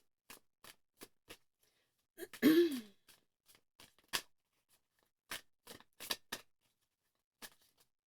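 Tarot cards being handled and shuffled: a scattered run of short, sharp card clicks and snaps. About two seconds in comes a brief throat-clearing vocal noise, the loudest sound.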